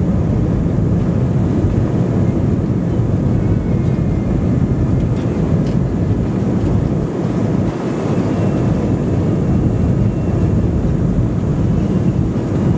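Airbus A320-216 rolling along the runway, heard inside the cabin: a loud, steady rumble of its CFM56 jet engines and the wheels on the runway, with a slight brief dip in loudness about two-thirds of the way through.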